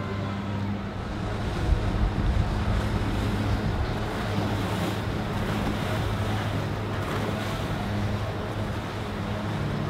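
Motor yacht engines running with a steady low drone as the boat passes, over the rush of water from its wake. Wind buffets the microphone, strongest about two seconds in.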